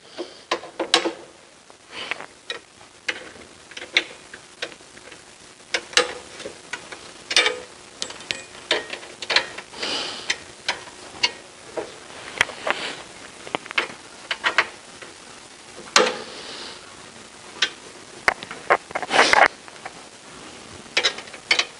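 Irregular clicks, taps and knocks of metal truss poles and their clamps being fitted to the wooden mirror box while a truss Dobsonian telescope is put together, with brief rustling in between.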